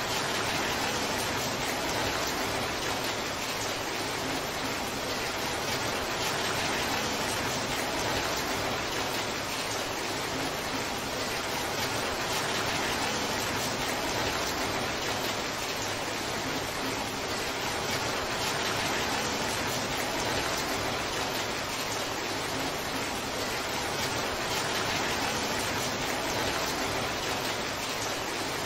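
Torrential rain falling steadily: a dense, even hiss of downpour with no single drops or thunder standing out.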